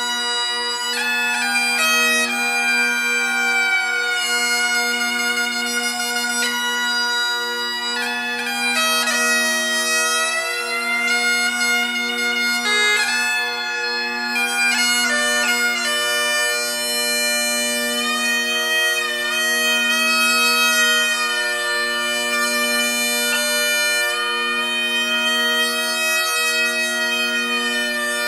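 Scottish bagpipes playing a slide exercise: the chanter melody glides and bends between notes over the steady, unbroken drones.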